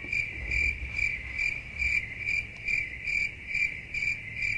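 Cricket chirping sound effect: a steady, even train of high chirps, about two to three a second, the stock 'crickets' gag for an awkward silence after a failure.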